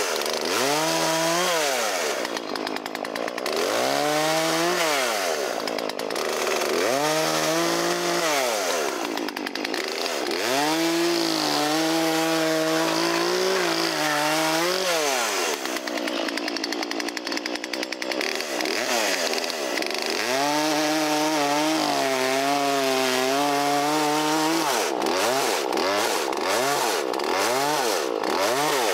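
Small two-stroke Poulan Wood Shark chainsaw cutting firewood: the engine revs up to full throttle and holds there through each cut, about five times, then drops back toward idle between cuts, with a few quick throttle blips near the end.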